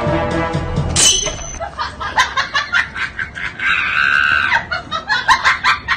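People laughing in quick repeated bursts, with a higher, drawn-out squeal of laughter near the middle. Background music plays for the first second and then cuts off.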